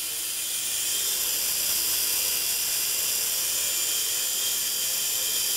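Hirobo Quark electric micro RC helicopter hovering: a steady high whine of its motor and spinning rotor, getting a little louder about a second in. Its main blades are repaired with five-minute epoxy and are tracking okay.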